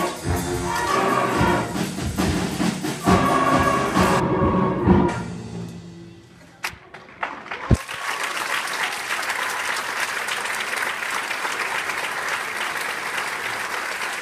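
A middle school symphonic band plays the closing bars of a piece and stops about five seconds in. After a short lull with a couple of thumps, the audience breaks into steady applause.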